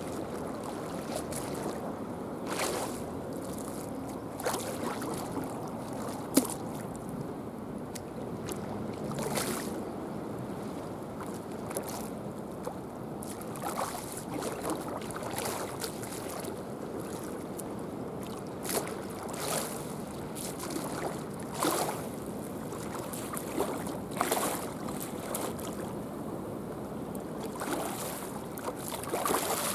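Seawater lapping and splashing in irregular surges every couple of seconds over a steady wash of water and wind; a single sharp click about six seconds in.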